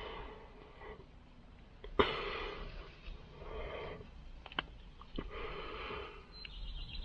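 Hand-work noise from joining a wire in a small crimp butt connector: a sharp click about two seconds in and a few smaller clicks, among longer rubbing, breathy sounds.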